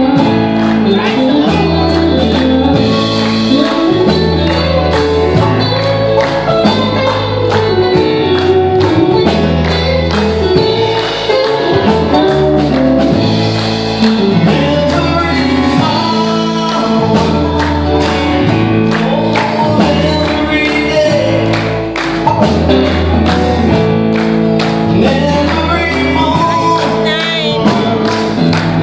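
Live gospel band playing: a man singing over acoustic guitar, banjo, electric bass and piano, with a steady beat and bass notes changing about once a second.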